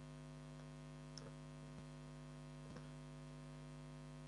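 Faint steady electrical mains hum with a buzzy edge in the recording, with a few faint ticks scattered through it.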